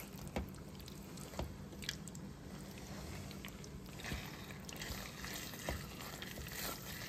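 A silicone spatula stirring cooked spaghetti through thick tomato sauce in a frying pan: soft wet squishing with scattered light clicks, over a faint steady low hum.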